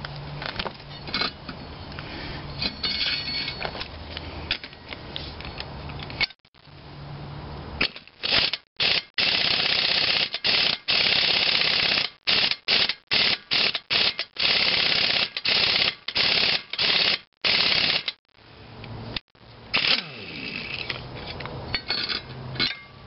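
Pneumatic impact wrench hammering in a series of short bursts, starting about eight seconds in, as it drives the bolt of a homemade gib key puller to draw a very tight gib key out of the cast-iron flywheel hub of an antique International Harvester engine. Metal clinks and tool handling come before and after the bursts.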